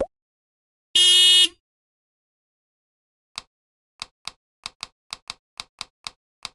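A short pop, then about a second in a bright ringing chime lasting half a second, the loudest sound here. After a pause comes a run of about a dozen sharp clicks that speed up to three or four a second.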